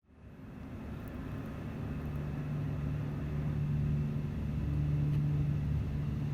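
Steady low rumble of city traffic with a constant hum, fading in from silence at the start.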